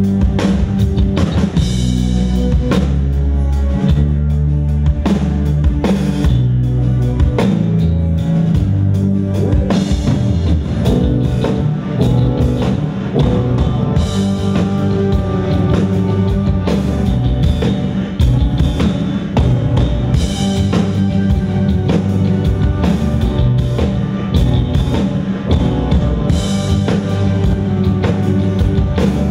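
A live rock band playing: drum kit with bass drum, electric guitar and bass in a full, steady groove.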